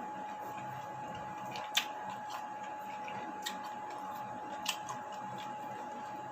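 Eating noises during a meal: three sharp clicks, about a second and a half apart, over a steady background hum with a faint steady high tone.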